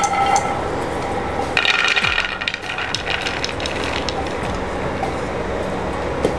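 Dry-roasted peanuts rattling out of a frying pan onto a plate, pushed along by a spatula: a clatter of many small hits for about two seconds, starting a second and a half in.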